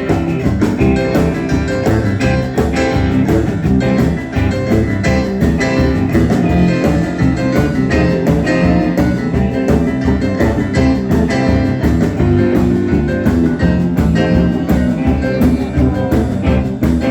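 Live rock and roll band playing an instrumental break in a boogie-woogie tune: the piano takes a solo over a steady drum beat, bass and guitar.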